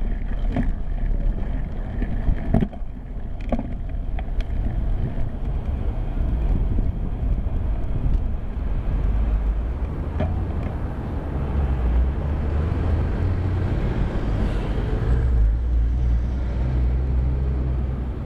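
Wind rumbling on a bicycle-mounted camera's microphone and tyre noise while riding, with motor traffic passing alongside. A few sharp knocks come in the first four seconds.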